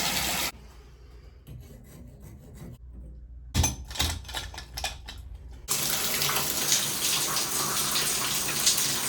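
Shower water running through a newly replaced shower cartridge and diverter. It is shut off about half a second in, a few knocks and clicks follow, and the water comes back on about two-thirds of the way through as a steady spray.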